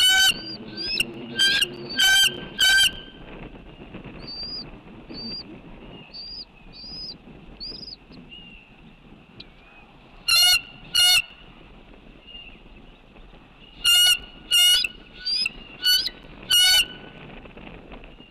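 Geese honking in loud, short calls that come in clusters: a few at the start, a pair about ten seconds in, and a quick run of about six near the end. Faint high chirps from other birds fill the gaps.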